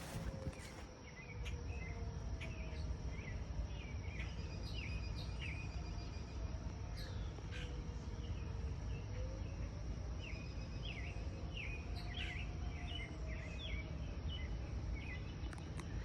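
Distant outdoor tornado warning sirens sounding faintly, their pitch slowly rising and falling, under frequent bird chirps, a steady high insect drone and a low steady rumble.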